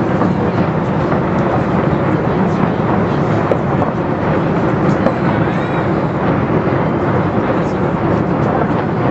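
Steady, loud din of a big fireworks display: continuous rumbling bursts blended with the voices of a large crowd.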